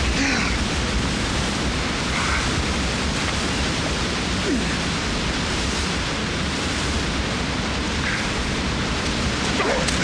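Steady rush of a waterfall and fast river, with a few short pained groans and whimpers from an injured man.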